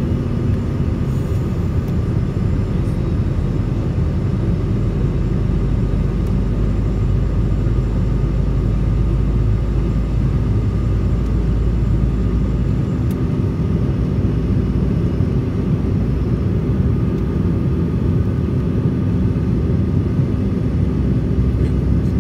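Cabin noise inside a Sukhoi Superjet 100 airliner on approach: its SaM146 turbofans and the airflow make a steady low rumble with a hum. The deepest part of the rumble drops away about 13 seconds in.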